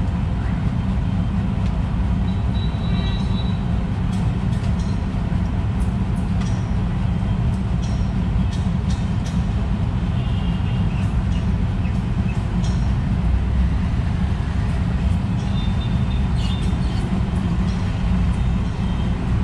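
A steady low rumble fills the sound, with small birds' short chirps and sharp ticks scattered over it.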